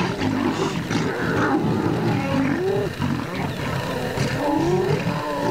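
Lions growling without a break, with a couple of rising calls about two and a half and four and a half seconds in.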